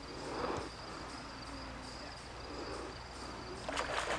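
An insect, likely a cricket, chirping steadily in a high pitch, with a brief rustle in the brush near the end.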